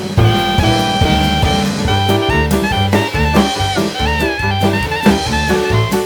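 Background music: an instrumental track with horns, bass and drums at a steady beat.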